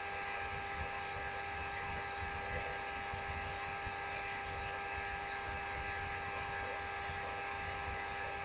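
Steady electrical hum and hiss with several constant tones, unchanging throughout, with no other sounds over it.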